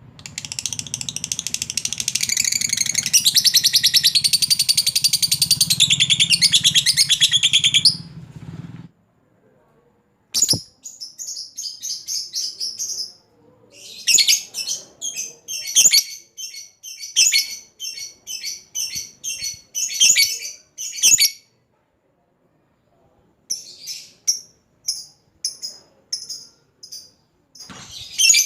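Lovebird 'ngekek': a long, unbroken, high chattering trill for about eight seconds. After a short pause come briefer bursts of sharp chirps, several a second, broken by another pause near the end.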